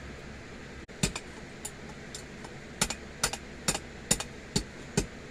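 Blacksmith's hammer striking a small bar on the anvil to bend its end into a scroll: a few light taps about a second in, then steady sharp blows a little over two a second from about three seconds in.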